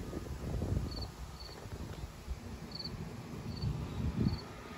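A cricket chirping outdoors: short, high chirps about once a second, over a low, uneven rumble.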